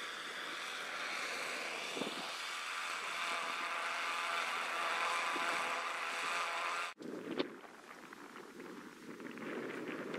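Strong wind on the microphone, a steady rushing noise. It cuts off suddenly about seven seconds in and gives way to a lower, gustier wind rumble with one short knock.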